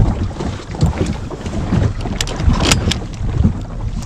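Wind buffeting the microphone over open water, with a low rumble and water sounds around a small boat. A few sharp clicks come about two to three seconds in.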